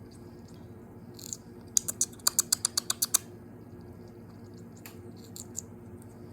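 Quaker parrot's beak crunching broccoli: a quick run of about ten sharp clicks over a second and a half, with a few fainter clicks before and after.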